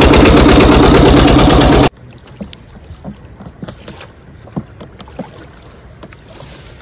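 Boat engine running loudly with a fast, even chug, cutting off abruptly about two seconds in. Faint scattered knocks and clicks follow.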